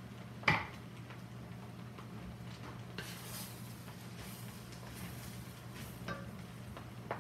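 Wooden spatula stirring and tossing fried rice in a large hot pan, with light clinks and a faint sizzle. A sharp knock about half a second in is the loudest sound.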